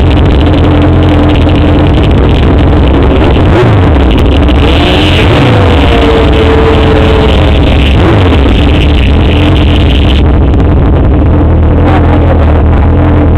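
ATV engines running loud and hard, with the engine pitch dropping sharply a few times, like gear shifts or machines passing.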